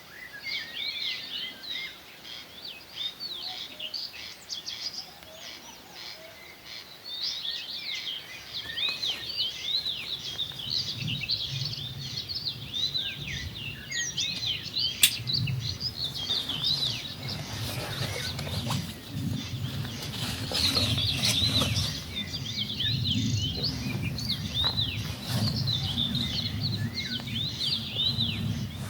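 A dense chorus of songbirds chirping and trilling without pause, several birds overlapping. From about a third of the way in, a low rumbling noise joins underneath, and there is one sharp click near the middle.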